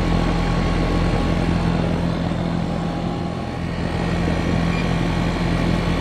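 Goodman air conditioner's outdoor condensing unit running: the condenser fan and rotary compressor make a steady hum while the system is being charged with refrigerant.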